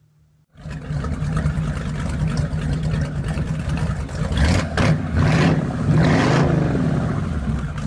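Car engine that starts up suddenly about half a second in and runs with several revs, the pitch swelling up and dropping back a few times in the second half.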